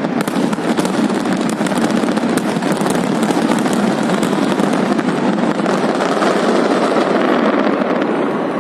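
Fireworks display: a dense, continuous crackle of many small sharp pops, thinning out in the second half.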